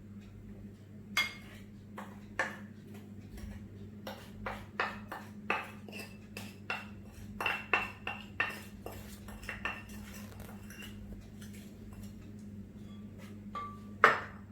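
A metal spoon clinking against a mixing bowl as sugar is spooned in: a scatter of light taps with a short ring, quickest between about four and ten seconds in, then one louder knock near the end.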